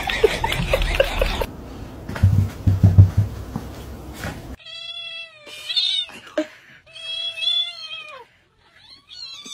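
Cat meowing: three drawn-out, high meows in the second half, the middle one the longest. Before them, scuffling and some low thumps.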